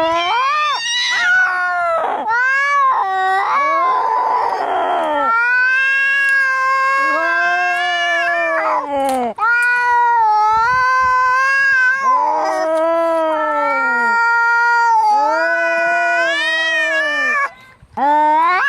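Angry cats yowling and caterwauling, long drawn-out wavering yowls one after another, with a harsh hissing burst about four seconds in. The yowls break off briefly near the end.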